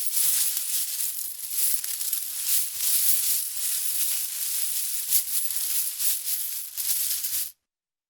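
Many coins clinking and jingling together in a dense, continuous rattle that cuts off abruptly near the end.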